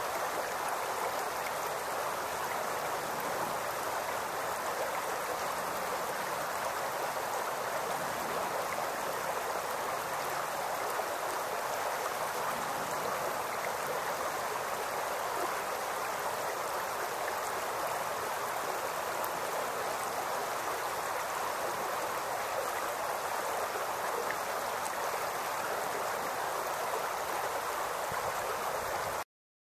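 Shallow creek babbling steadily over rocks and stones in its bed. The sound cuts off abruptly near the end.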